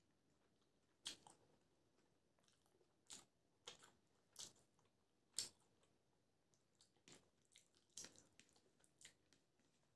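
Faint mouth sounds of a person chewing food: a scattering of short, sharp crunches and wet clicks, a second or so apart, over quiet.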